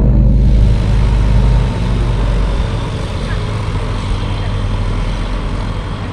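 TL Ultralight Stream microlight's propeller engine running as it taxis, a steady drone with hiss that gradually fades.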